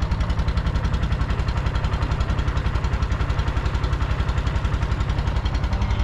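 A small boat's engine running steadily under way, with a fast, even chugging beat.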